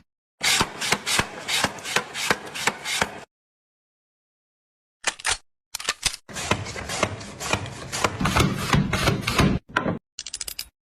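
Rapid knocking and scraping strokes of a kitchen gadget at work. They stop dead for nearly two seconds a few seconds in, then resume thicker and heavier.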